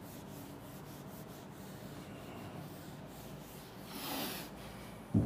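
Whiteboard eraser rubbing across a whiteboard in repeated wiping strokes, with a louder swipe about four seconds in. A sharp knock comes right at the end.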